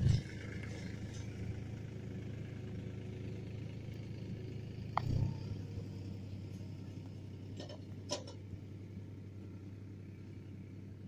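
A steady low rumble with a hum running through it, with a dull thump at the start and another about five seconds in, and a few short sharp clicks about eight seconds in.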